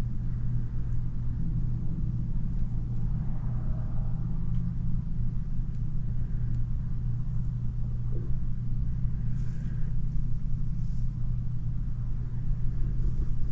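Steady low electrical hum with a few faint light scratches or taps over it.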